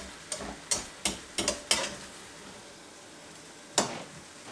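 Spatula knocking and scraping against a non-stick wok as stir-fried noodles and vegetables are tossed: a run of quick knocks in the first two seconds and one more near the end, over a faint sizzle from the hot pan.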